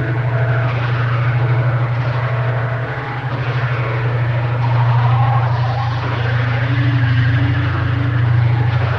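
A loud, steady low drone with a fast flutter in it, and faint wavering tones above it.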